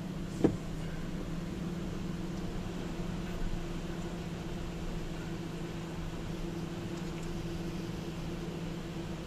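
Steady hum and noise of a vehicle driving slowly through water over a flooded road, with one sharp knock about half a second in.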